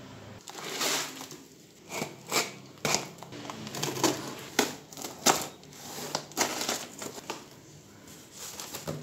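Packing tape being ripped off a cardboard box in a series of short, irregular tears, with the stiff cardboard flap and its contents rustling as the box is pulled open.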